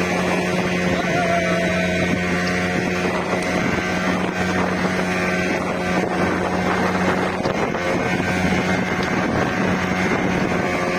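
Speedboat engine running steadily at speed, a constant drone, with wind noise on the microphone.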